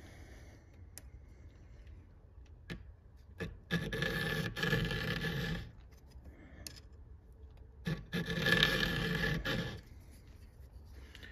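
Flat file scraping across the rakers (depth gauges) of a Husqvarna 372XP saw chain, lowering them. Steel on steel, in two spells of filing about two seconds each.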